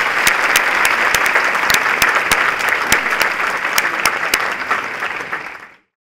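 Audience applauding: a dense patter of clapping with many sharp individual claps standing out. It tails off and cuts off just before the end.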